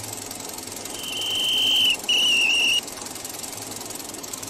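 Two high whistled notes. The first is held steady and swells for about a second, and after a brief break a shorter second note follows with a slight waver. Both sit over a steady hiss and low hum.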